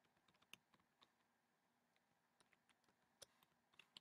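Faint keystrokes on a computer keyboard: a quick run of taps, a pause of about a second, then more taps.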